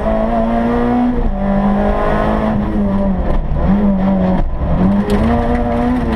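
Rally car engine heard from inside the cabin, pulling hard under acceleration. Its note climbs, then drops sharply at each gear change, about three times.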